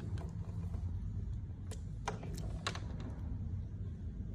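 Key being turned in an electric bike's battery lock: a handful of small sharp clicks around the middle, over a low steady hum.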